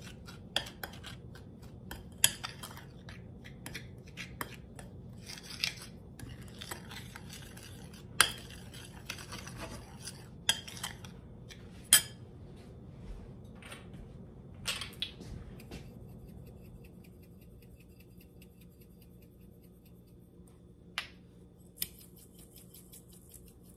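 A metal spoon stirring a flour and spice dredging mix in a ceramic bowl, scraping and clinking against the bowl. The clinks are frequent for about the first two-thirds, then become sparse.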